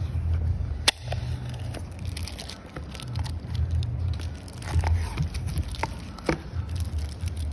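Packaging being handled while a cardboard box is opened and a bubble-wrapped phone screen assembly is lifted out: plastic crinkling and rustling, with a sharp snap about a second in and another a little after six seconds.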